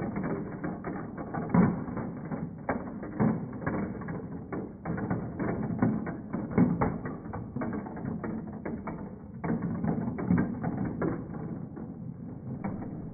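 Steel balls rolling and clattering through a plastic marble run, circling the funnel bowls and dropping through, making a dense run of irregular clicks and knocks over a rolling rumble, with several louder knocks.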